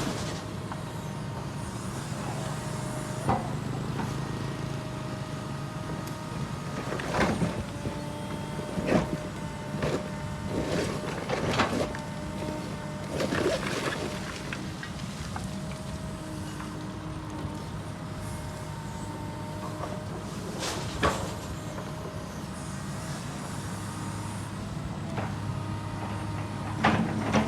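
Excavator engine running steadily, with a whine that steps up and down in pitch as it works. There are sharp metal clanks about eight times, several of them close together in the middle.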